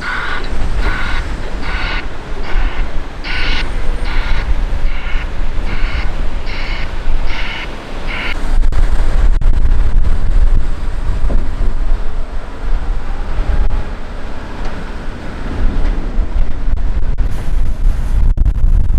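Heavy diesel machinery running with a deep, steady rumble while a reversing alarm beeps about twice a second; the beeping stops about eight seconds in, and the noise then grows louder as a Volvo L180H wheel loader works the sugar beet pile.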